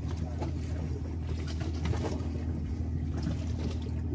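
Steady low hum of a boat's engine running evenly, with a few faint knocks.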